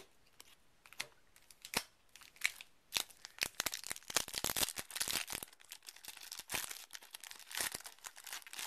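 Foil Yu-Gi-Oh booster pack wrapper crinkling and tearing as it is torn open by hand. Scattered crackles build to a dense stretch of crinkling about three to five seconds in, then thin out as the cards come out.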